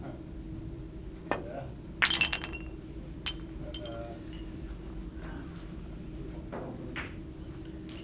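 Billiard balls clicking against each other: one sharp knock about a second in, then a quick run of loud, ringing clicks a moment later, with a few lighter clicks after.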